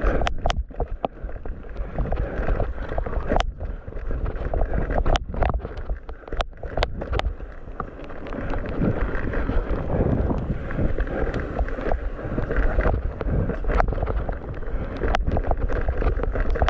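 Mountain bike rolling fast along a wet dirt trail: a steady rush of tyre and wind noise, broken by many sharp clicks and knocks as the bike jolts over the ground.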